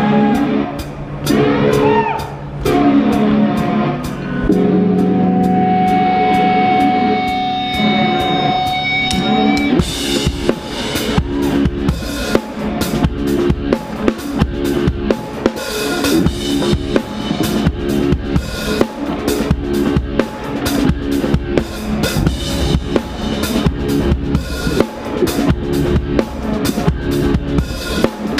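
Live rock band with the drum kit heard up close: held guitar and bass notes over steady light ticks, then about ten seconds in the full kit comes in with driving bass drum, snare and cymbal hits.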